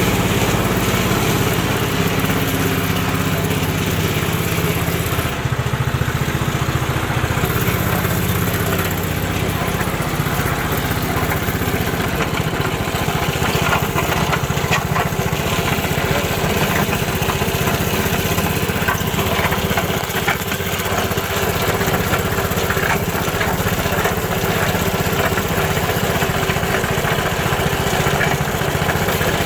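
Coleman mini bike's small engine running, steady at first and then less even from about nine seconds in. The odd noise it has been making is still there with the clutch freshly greased, so the owner takes it for something inside the engine, not the clutch.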